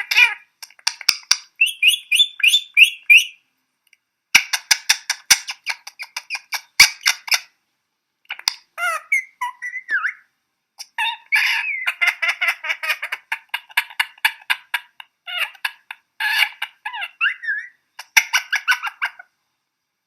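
A pet bird vocalising while being petted: bursts of rapid, harsh chattering squawks a second or more long, broken by short pauses.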